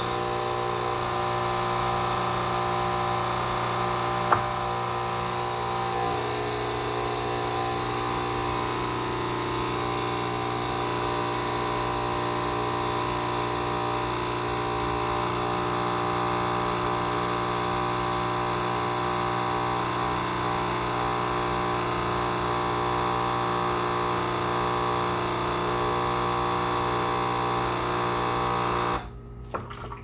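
Nespresso capsule machine's pump buzzing steadily, pushing descaling solution through with the brew button held down, with one short click about four seconds in. The buzz cuts off about a second before the end, when the button is released.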